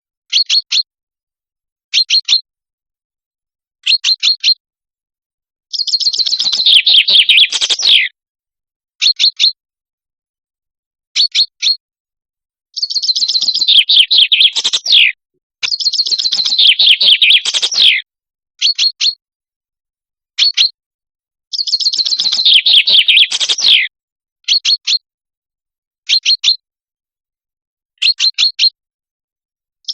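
Common chaffinch singing: four song phrases, each a falling trill about two seconds long that ends in a flourish, with short clipped call notes in twos and threes between them. The gaps between notes are dead silent.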